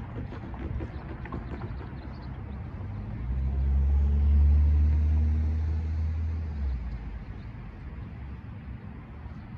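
A road vehicle driving past close by: its low engine drone swells about three seconds in, peaks and fades away over roughly three seconds, over steady street traffic hum.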